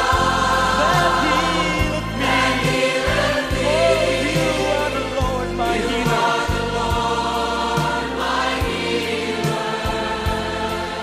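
Live praise-and-worship music: a band playing with a choir singing over it.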